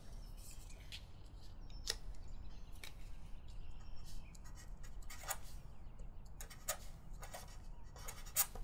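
Marker pen drawing and writing on the board: a quiet string of short, separate strokes over a low, steady room hum.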